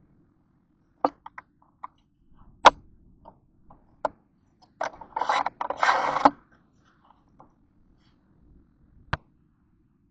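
Parts being worked by hand: scattered sharp clicks and knocks, with a burst of scraping and rustling about five seconds in that lasts over a second.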